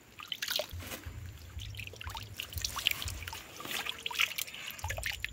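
Water trickling and splashing lightly in a shallow water hole, in small irregular splashes, over a low uneven rumble.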